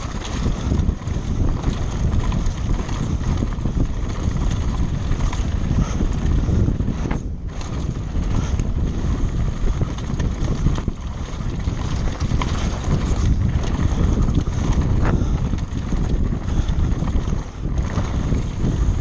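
Wind buffeting the microphone of a camera moving at speed: a steady, loud low rumble.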